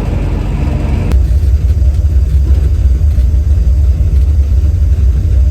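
1970 Chevy Nova's 383 V8 running on the road with a low exhaust rumble that gets louder and heavier about a second in.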